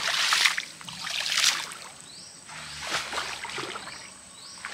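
Pond water splashing and sloshing as people wade through it dragging a fishing net, in three surges about a second and a half apart.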